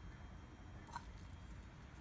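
Quiet outdoor background with a faint low rumble, and one brief faint sound about a second in.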